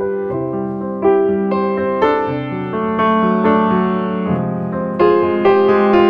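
Background piano music, with new notes or chords struck about once a second.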